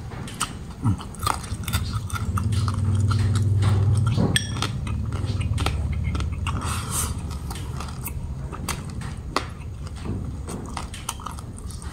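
Close-up chewing of crisp fried pork belly with rice, the puffed crackling skin crunching in many sharp little clicks. A low steady hum runs for about two seconds near the start.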